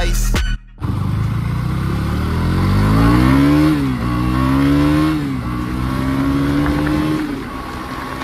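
A KTM Duke 200's single-cylinder engine accelerating hard through the gears: its pitch climbs, drops at two upshifts, climbs again, then holds steady at cruise and eases off near the end. A moment of hip-hop music with a beat cuts off just before the engine comes in.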